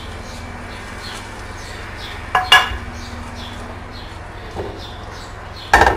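A brush dabbing thin semolina batter onto a hot non-stick pan to lay down a malsouka (brick) pastry sheet. There are two sharp clinks against the pan, one about two and a half seconds in and a louder one near the end, over a steady low hum.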